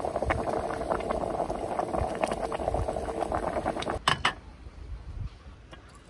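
A pot of broth boiling hard on a gas-canister camping stove, with dense bubbling and crackling. About four seconds in there are two sharp metal clacks, and the bubbling then drops away to a much quieter sound.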